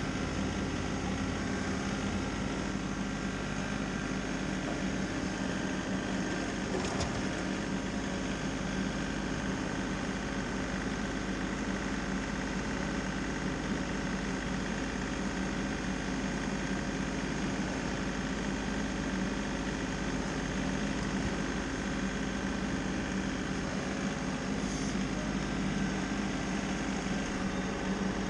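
An engine running steadily at a constant speed, its pitch unchanging.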